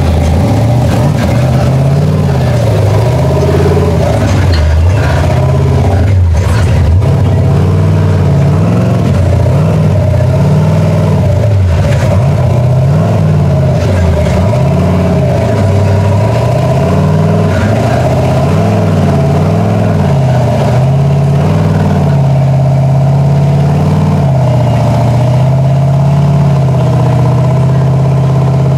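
Big-block V8 engine of a custom S-10 cab rock buggy revving up and down over and over as it crawls up rock ledges, then holding a steadier rev for the last several seconds.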